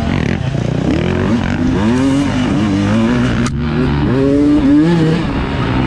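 Dirt bike engine revving up and down as the rider works the throttle, its pitch rising and falling every second or so, with a single sharp knock about three and a half seconds in.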